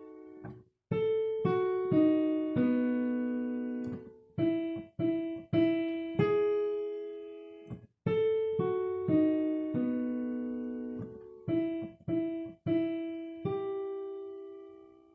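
Piano playing a chain of intervals and chords built on F-sharp, as an ear-training dictation: a string of struck two- and three-note sonorities, each left to ring and fade. The whole chain is played twice.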